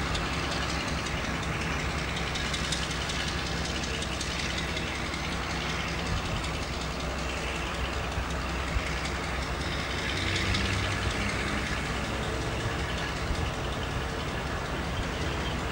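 Class 42 'Warship' diesel-hydraulic locomotive's twin Maybach V12 engines running steadily with a low throb, swelling briefly about ten seconds in.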